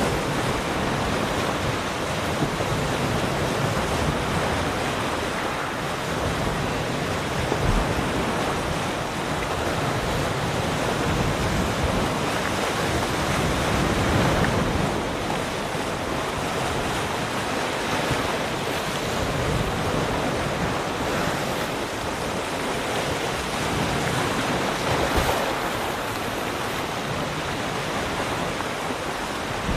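Ocean waves breaking and washing on a shore, a steady rushing surf that swells and eases every few seconds, with some wind buffeting the microphone.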